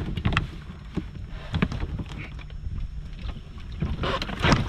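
A crab hoop net being hauled up by its rope and swung aboard a small folding boat. Steady wind rumble on the microphone carries scattered knocks from the rope and net, with a louder clatter about four seconds in as the net comes over the side into the hull.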